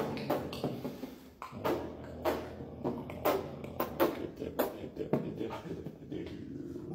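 Beatboxing: a vocal percussion beat of sharp kick- and snare-like strokes at about two a second, with a short break near the start.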